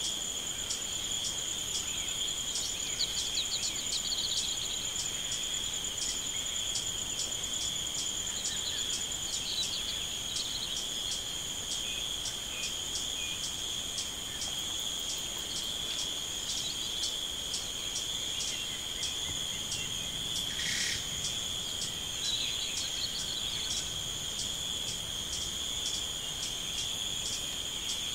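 Insects chirring in a steady, high-pitched chorus that pulses about twice a second.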